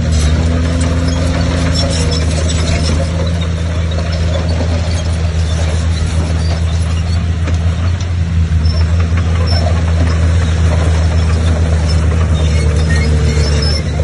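Heavy diesel earthmoving machine running steadily at working load, its deep engine note constant.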